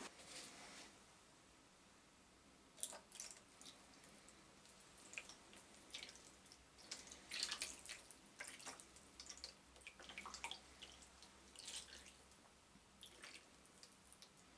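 Clear liquid poured from a plastic bottle over rusty steel files in a plastic tray: faint, irregular splashing and dripping that begins about three seconds in.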